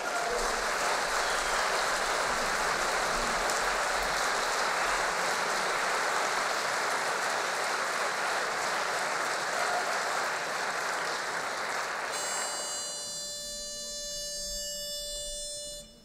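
Audience applauding for about twelve seconds, then dying away. Near the end a pitch pipe sounds one steady reed note, giving the quartet its starting pitch for the next song.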